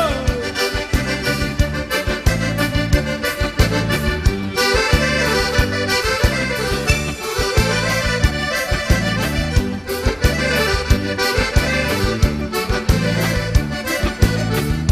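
Instrumental break in gaúcho dance music: an accordion plays the melody over bass and a steady, even dance beat, growing fuller a few seconds in.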